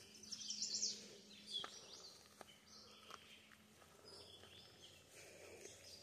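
Songbirds singing: several short, high-pitched phrases a second or two apart, with a few faint ticks of footsteps on gravel.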